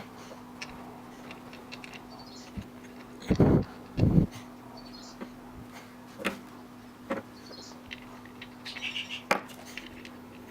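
Small hard parts being handled on a work surface: scattered light clicks and knocks, with two louder knocks about three and a half and four seconds in. A steady low hum runs underneath, and a bird chirps faintly a few times.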